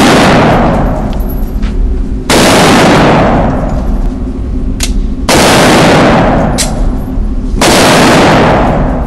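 Gunshots echoing inside an indoor shooting range: four loud shots a few seconds apart, each ringing on through the hall for a couple of seconds, with a few faint clicks between them.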